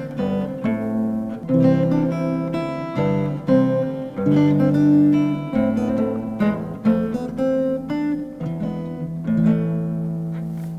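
Instrumental music on a solo plucked string instrument, picked notes and strummed chords; near the end a last chord is struck and left to ring, fading out.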